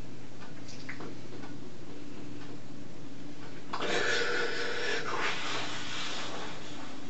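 Steady low hum of an interrogation-room recording. A brief rush of noise comes about four seconds in and fades over the next two seconds.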